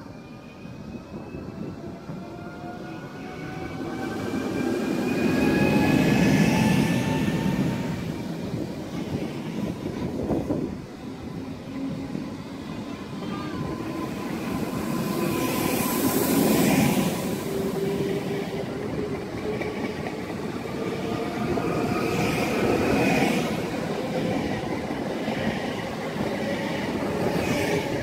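Three coupled Newag Impuls 31WE electric multiple units pulling away along the platform. The electric traction drives whine in several tones that rise in pitch as the train gathers speed, over wheel and rail noise that swells three times as the cars go past.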